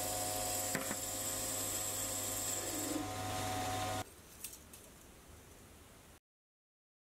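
Sieg C3 mini lathe running, its motor and spindle giving a steady hum with a high whine, which cuts off suddenly about four seconds in; a couple of faint clicks follow, then silence.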